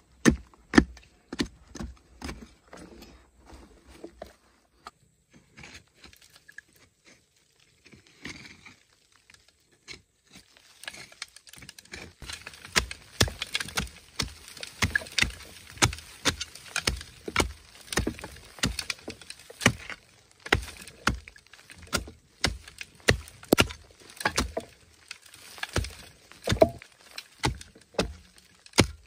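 Hand digging tool striking and scraping into hard earth: a few spaced knocks, a lull, then a busy run of rapid strikes and scraping from about ten seconds in.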